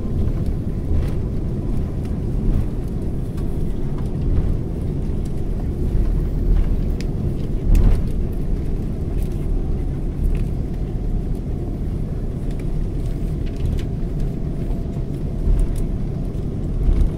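Cabin noise of an airliner rolling along the ground after landing: a steady low rumble from the wheels and airframe, with a few knocks, the loudest about eight seconds in.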